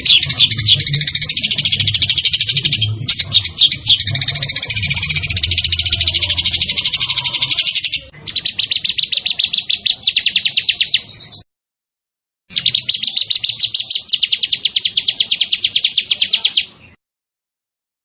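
Songbird singing loud, fast rolling trills of rapidly repeated high notes in long bursts, broken by a short silence about eleven seconds in and again near the end.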